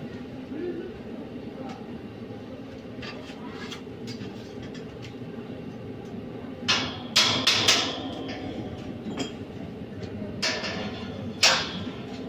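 Sharp metal clanks on steel window grill bars: a quick run of four strikes about halfway through, then two more near the end, over a steady low hum.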